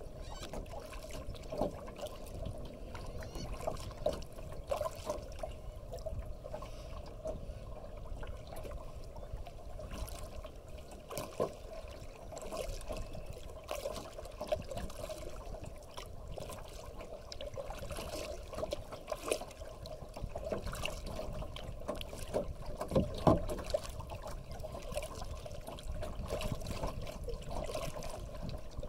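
Lake water lapping and trickling against a kayak's hull while paddling, with small irregular drips and splashes and a few louder ones.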